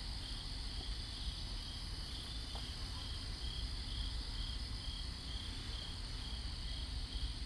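Night insects chirring: a steady high trill with a second, lower chirp pulsing evenly a little under twice a second.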